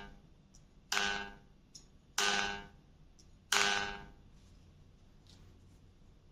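Blued-steel reed tongues on a bayan's solid reed plate plucked one at a time, each giving a short pitched twang that dies away within about half a second. Three plucks come roughly a second and a quarter apart, the tail of an earlier one sounding at the very start: the reeds are being tried one by one to find the sluggish voice.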